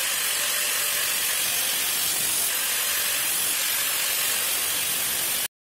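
Angle grinder with an abrasive cutting disc slicing through the steel shell of a fire extinguisher cylinder: a steady, hissing grind that cuts off suddenly near the end.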